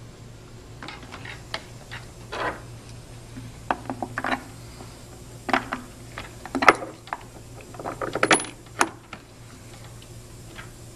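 Metal bolts clinking and knocking against a plastic pump housing as they are handled and set into their holes by hand: a scatter of irregular sharp clicks, the loudest about two-thirds of the way through, over a steady low hum.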